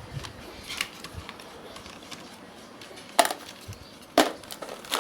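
Hard plastic toy parts clicking and snapping together as a Megazord's foot cover is pressed onto the leg: a few soft clicks, then two sharp snaps about a second apart near the end.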